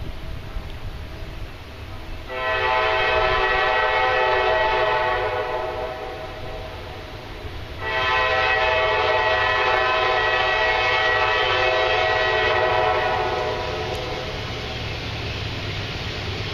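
Locomotive air horn of CSX No. 8 sounding two long blasts, the first about three and a half seconds, the second about five seconds, over a low rumble of the approaching train.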